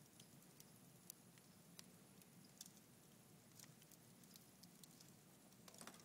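Red oak logs burning in a wood fireplace: faint, irregular crackles and pops over a steady low background, with a quick cluster of pops near the end.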